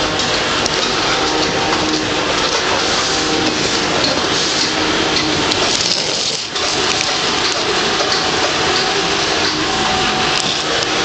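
Household vacuum cleaner running steadily with a loud rushing noise, briefly dipping once about six and a half seconds in.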